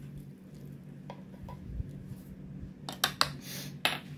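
Metal measuring spoon and glass spice jar clicking and knocking while dried parsley is spooned into a plastic tub: a few light clicks, then sharper knocks about three seconds in and again near the end. A steady low hum runs underneath.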